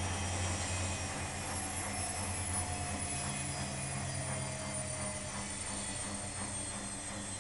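Beko 2612C front-loading washing machine in its intermediate spin, with the drum turning and the motor whining. The motor's pitch falls slowly, as the drum winds down from the spin.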